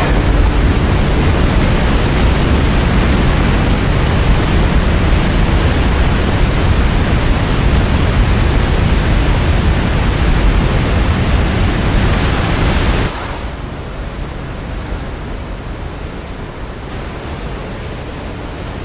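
A large waterfall's rushing water, loud and even. About thirteen seconds in it drops suddenly to a quieter, duller rush of churning water.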